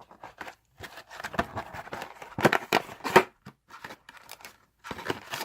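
Cardboard retail box of trading cards being pulled open by hand: an irregular run of crackles and snaps, with two sharper snaps a little past the middle.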